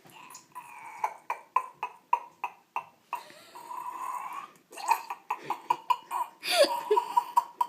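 A person making a mouth sound effect, a "crazy duck": a run of sharp, rhythmic honking, clicking vocal strokes, about three a second, with a falling squawk near the end.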